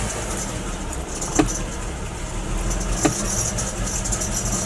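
Mercedes AMG 55 V8 idling roughly just after starting, with a distinct misfire making the whole engine shake. Two sharp clicks sound over it, about a second and a half apart.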